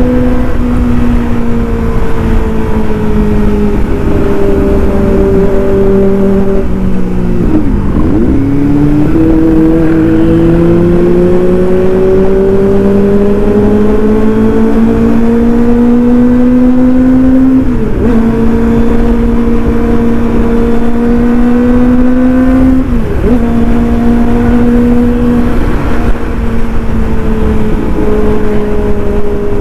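Kawasaki ZX-25R 250 cc inline-four engine running through an aftermarket Austin Racing exhaust while riding, its note slowly rising and falling with throttle. There are three brief breaks in the note, about 8, 18 and 23 seconds in.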